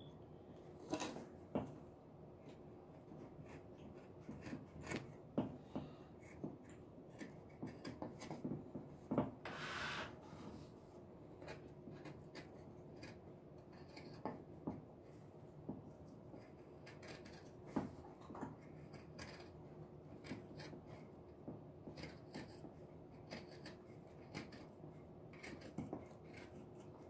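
Fabric scissors cutting through heavy doubled denim in short, irregular snips, the blades clicking softly as they close. One brief, louder rustle comes about ten seconds in.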